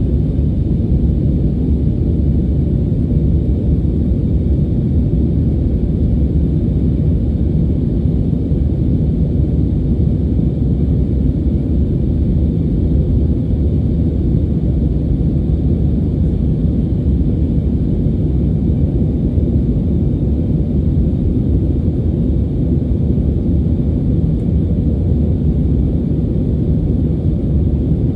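Cabin noise of an Airbus A320neo in flight, heard from a window seat: a steady, deep rumble of the Pratt & Whitney geared turbofan engines and airflow, with a fainter hiss above it and no change in level throughout.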